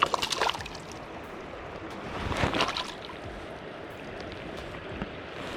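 River water running steadily, with two short louder bursts of noise, one right at the start and one about two and a half seconds in.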